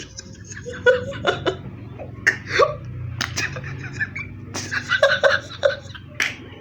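A young boy laughing to himself in short, broken snickers and giggles, with a few sharp clicks in between.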